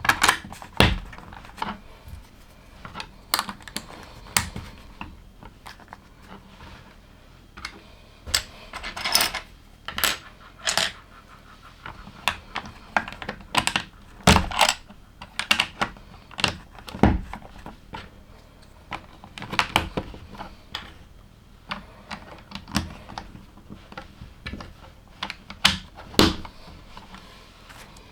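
LEGO bricks being handled and snapped together: irregular small plastic clicks and clatters, with now and then a louder knock.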